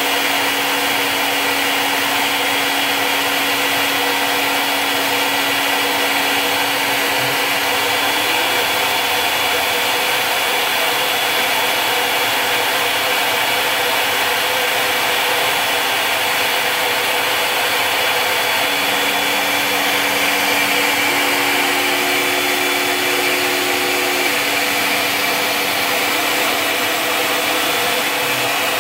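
CNC Tensilkut III milling machine's spindle running and its cutter milling a wood composite blank: a steady high whine over steady cutting noise. A fainter low tone shifts pitch a few times.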